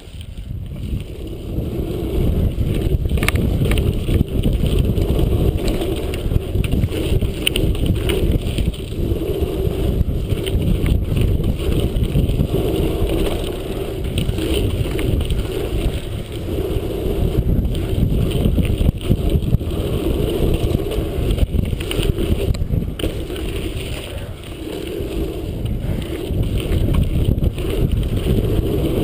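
Wind rushing over an action camera's microphone together with BMX tyres rolling over packed dirt: a loud, steady rumble that builds over the first couple of seconds and then swells and dips as the bike pumps over the track's rollers and berms.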